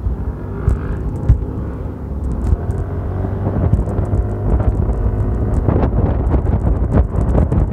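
Wind buffeting the microphone while riding a Yamaha FreeGo 125 scooter, its single-cylinder engine running under acceleration beneath the wind noise. It grows louder about two seconds in.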